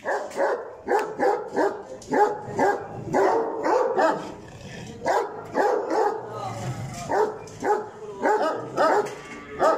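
Dog barking over and over, about two barks a second, with a short pause about halfway through.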